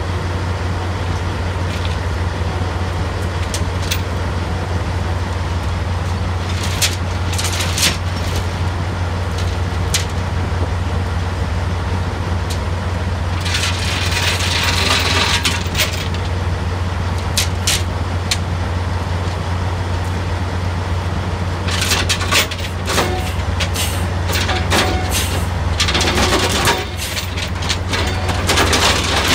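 Drilling rig floor machinery: a steady low drone from the rig's running engines, broken by sharp metal clanks of chain and tools and bursts of hissing noise, about two seconds long near the middle and repeated toward the end.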